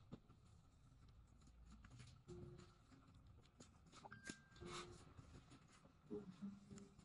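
Near silence: faint scratching and scattered small clicks over a low room hum, with a few brief faint tones.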